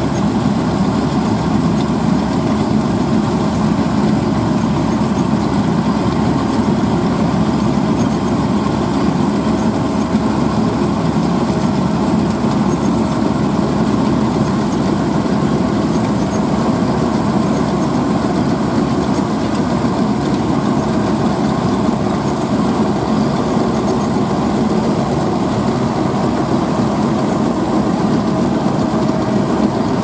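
Kartar TAF 360 crawler-track rice combine harvester running loud and steady while cutting and threshing rice.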